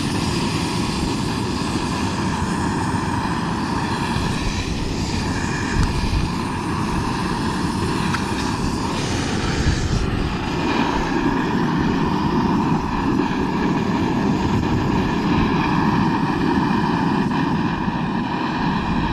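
Portable gas camping burner running turned right up, its flame giving a steady, even rushing hiss as the pot heats.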